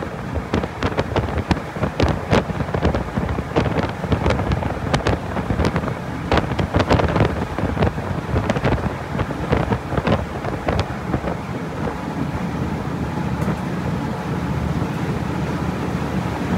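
Wind buffeting the microphone on the deck of a moving ferry, over the steady low drone of the ferry's engines and its wash. The gusts are sharp and frequent at first and ease about two-thirds of the way through, leaving a more even engine rumble.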